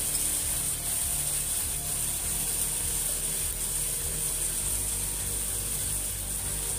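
Sweet and sour tomato sauce heating in a frying pan over a gas burner: a steady hiss with faint, irregular soft popping.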